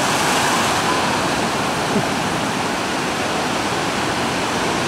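Ocean surf breaking and washing through the shallows, a steady wash of water.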